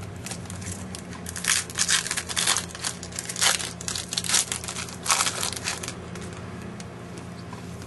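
Foil wrapper of a 2007 Topps Chrome baseball card pack crinkling in three clusters of bursts as it is handled and opened by hand.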